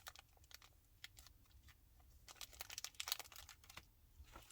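Faint crinkling and rustling of plastic packaging being handled, in scattered short crackles that are busiest about two to three seconds in.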